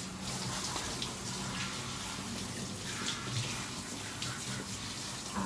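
Water running from a tap into a bathtub, a steady splashing hiss.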